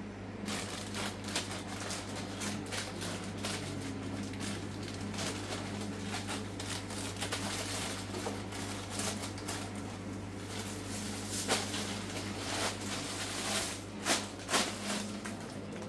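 Crinkly rustling of plastic shopping bags and snack-food packets being handled and bagged, with a few sharper crackles near the end, over a steady low hum.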